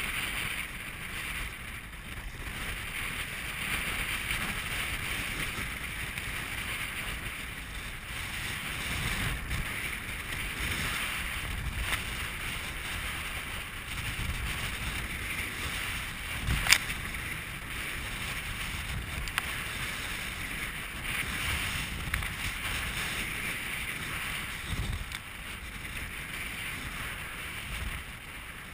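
Strong wind buffeting the microphone of a camera on a sea kayak, with water sloshing and splashing against the hull as it is paddled through choppy water. There is one sharp knock about two-thirds of the way through.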